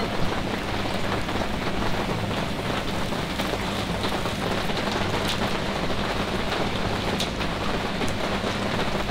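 Steady rain falling, an even hiss that does not change, with a faint low hum underneath.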